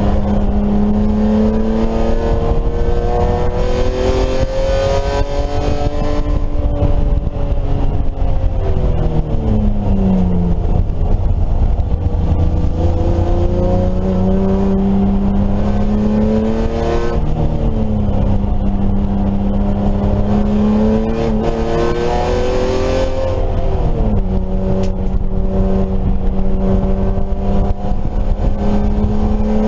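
BMW E30 race car engine pulling hard at speed. Its pitch climbs slowly with the revs and falls sharply three times, about a third of the way in, just past halfway and about four-fifths through, as the driver brakes or changes gear for corners. A steady low rumble runs under it.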